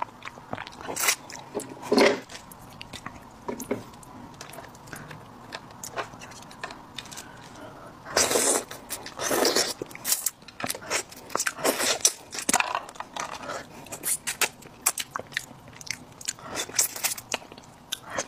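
Close-miked eating of cooked crayfish: irregular crunches and cracks as shell is bitten, with wet sucking and chewing of the meat. A louder run of crunching comes about halfway through.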